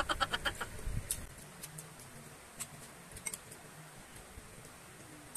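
Eating sounds up close: a quick run of clicks in the first second, then scattered soft mouth and utensil clicks from chewing.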